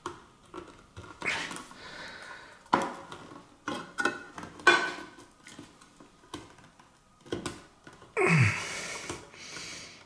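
Victorinox Swiss Army knife can opener pushed forward through the lid of a tin can, cutting in a series of short, uneven metal scraping strokes. A person's breath is heard near the end.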